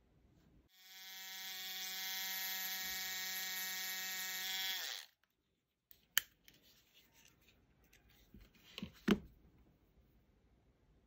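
A small electric motor, like a hobby mini drill, whirring at a steady pitch for about four seconds, dropping slightly in pitch just before it cuts off. A few light clicks follow as small metal tools are handled.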